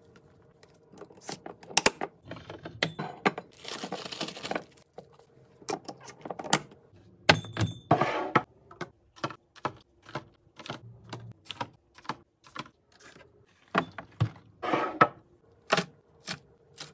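Irregular clicks, taps and knocks of containers, bottles and packaging being handled and set down while a fridge is restocked, with a few short bursts of rustling packaging.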